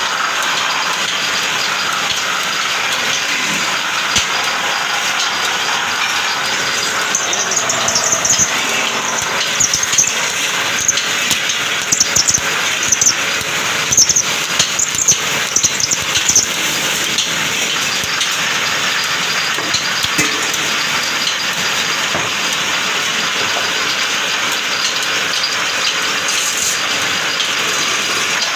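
Belt-driven metal-spinning lathe running steadily, turning an aluminium pot. From about 7 to 17 seconds in come repeated short, high-pitched squeals and scrapes as the worker's hand tool bears on the spinning aluminium.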